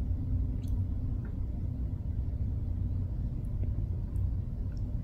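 Domestic cat purring close to the microphone: a steady low rumble.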